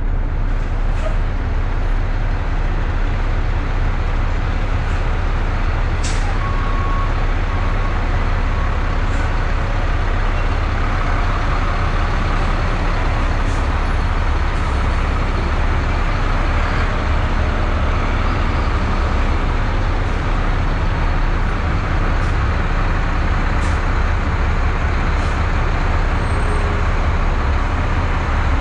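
Mack sander truck's diesel engine running steadily: a constant low drone with an even wash of noise over it, and a few faint clicks.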